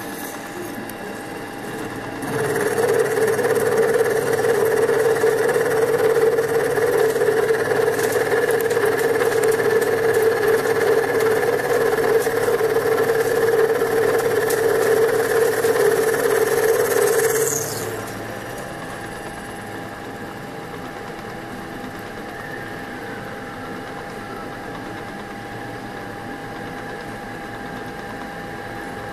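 Small CNC milling machine at work. A steady electric hum runs throughout. About two seconds in, the spindle comes in with a much louder steady whine and cutting noise while it mills lead, then winds down and stops near 18 seconds.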